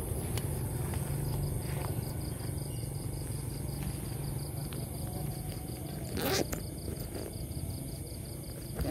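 Crickets trilling steadily at night, a fast even pulsing high tone, over a low steady hum. A brief scuffing rustle comes about six seconds in.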